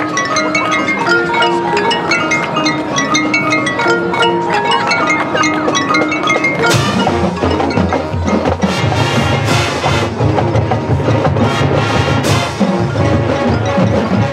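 Marching band music: the front ensemble's mallet percussion plays a quick, bright pattern of notes. About seven seconds in, the full band comes in with drums, cymbal crashes and a heavy low bass line.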